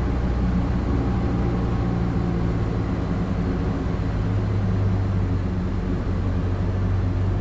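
Cessna 150's Continental O-200 four-cylinder engine running at low taxi power with a steady drone; its pitch drops slightly about halfway through.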